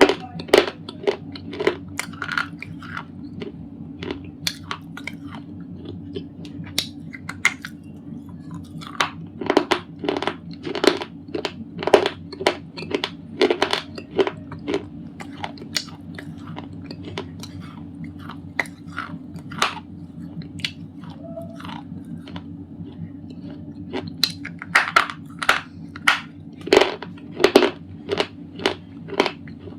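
A person biting and chewing thick white slate pencils: sharp, crisp crunches in clusters, sparser for several seconds in the middle, over a steady low hum.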